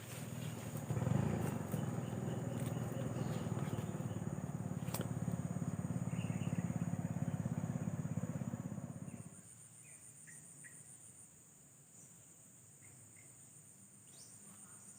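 A motor engine running with a low steady hum for about nine seconds, then cutting off suddenly. Insects trill steadily throughout and carry on alone afterwards.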